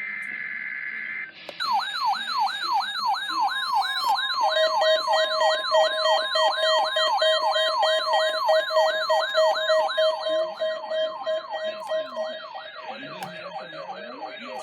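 Electronic siren in a fast yelp, its pitch sweeping up and down about three times a second, with steady tones held beneath it. It follows a brief steady two-tone sound at the start.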